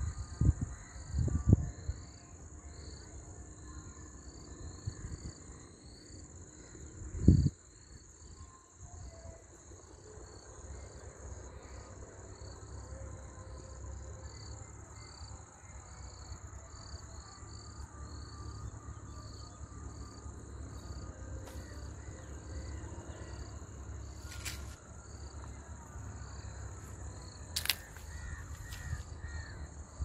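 Outdoor ambience of a steady high insect drone with a pulsing chirp about twice a second, over a low rumble, with a few loud bumps near the start and at about seven seconds.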